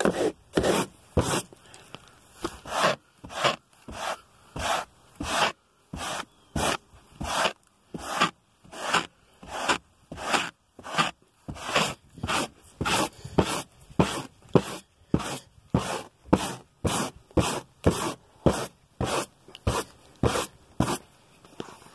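Soft-to-medium bristle brush scrubbing a car's interior in quick rasping strokes, about two a second, working embedded dirt loose instead of vacuuming.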